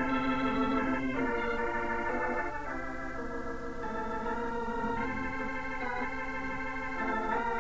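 Organ music: slow, sustained chords that change every second or two, a little softer in the middle.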